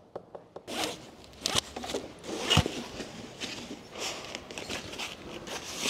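Fabric tie-down strap being pulled loose from a motorcycle: the webbing rasps and rustles in short, irregular, zipper-like scrapes as it slides and is handled.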